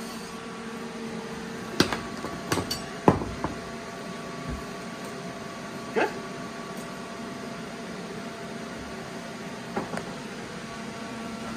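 Metal tools and parts handled on a steel workbench: a few scattered clunks and clinks, the loudest about three seconds in, over a steady hum.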